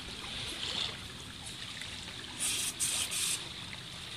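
Aerosol can of carburetor cleaner sprayed in three short hissing bursts, a little over two seconds in, blasting out a partly plugged idle (low-speed) jet from a Yamaha 20 HP four-stroke outboard carburetor.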